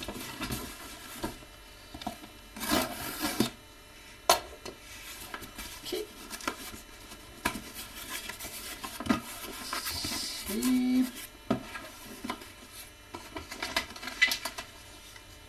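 Cardboard shipping box being opened and handled: scrapes, rustles and knocks of cardboard, with a longer scraping burst about three seconds in.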